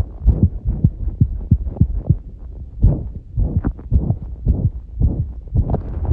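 Racing human heartbeat (tachycardia) picked up close to the chest: quick low thumps, about two to three a second and uneven in strength, over a steady low hum.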